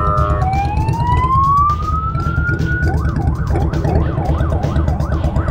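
Police car siren winding up in a rising wail from about half a second in, then switching about three seconds in to a fast up-and-down warble, about two sweeps a second. A low steady rumble of the motorcycle and road runs underneath.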